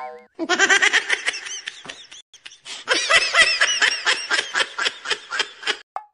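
Laughing sound effect: rapid, high-pitched laughter in two long bursts, the second starting about two and a half seconds in.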